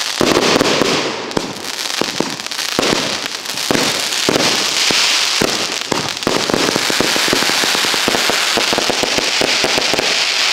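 Consumer aerial fireworks firing in quick succession: a continuous barrage of crackling and sharp bangs over a steady hiss, the bangs coming faster and denser in the second half.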